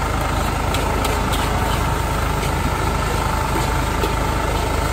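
High-pressure gas wok burner running with a steady rumble and hum, while a metal spatula clinks and scrapes against the wok every second or so as noodles are stir-fried.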